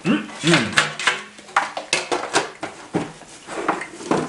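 Short clicks, clinks and rustles of gift packaging and candy being handled, scattered irregularly. A brief hummed vocal sound comes right at the start.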